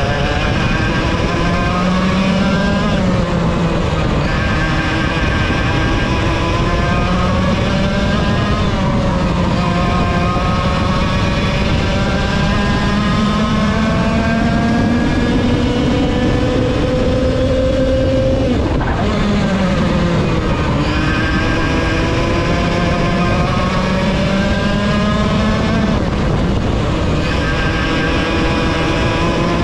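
Onboard sound of a VLR 100 two-stroke kart engine at racing speed. Its pitch climbs for several seconds along each straight, then drops sharply as the driver lifts and brakes for a corner, four times over. The longest climb is in the middle.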